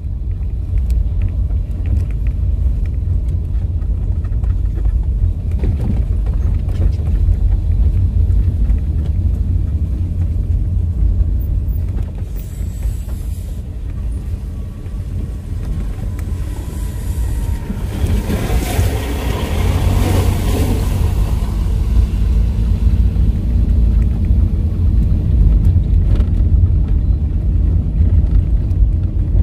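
Steady low road rumble of a car driving on a rough road, heard from inside the cabin. About two-thirds of the way in, an oncoming lorry passes close by: a louder rush that swells and fades within a few seconds.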